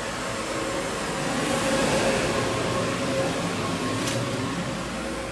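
Steady machine hum with a noisy rush and a faint held tone, swelling a little about two seconds in, with a light click about four seconds in.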